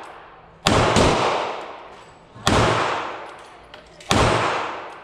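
Springfield Armory XD 9mm pistol fired three times, roughly one and a half seconds apart, each sharp shot trailing off in a long echo off the concrete walls of an indoor range.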